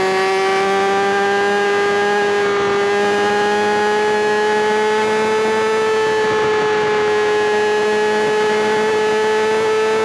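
Kawasaki ZX-6R's inline-four engine holding high, nearly steady revs, its note creeping slightly higher over the seconds.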